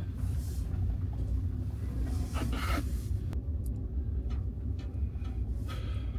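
Suzuki Jimny creeping in low gear down a steep, snowy hairpin road, its engine and tyres making a steady low rumble. A few brief scraping crunches come about two and a half seconds in and again near the end.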